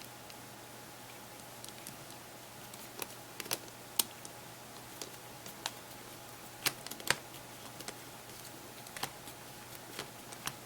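Small sharp clicks and taps at irregular intervals as a precision screwdriver and tiny screws work in the plastic housing of a Samsung Galaxy Player 5.0, over a faint steady hum.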